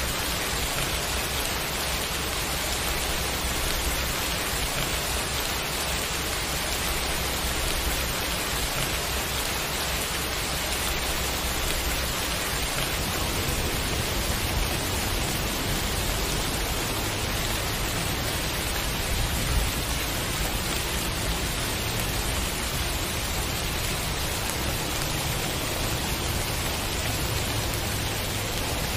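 Steady rain, an even hiss with no breaks. A low rumble underneath grows a little stronger about halfway through.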